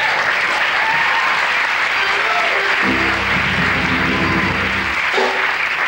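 Studio audience applauding, with the house band playing a short held chord about three seconds in that lasts about two seconds.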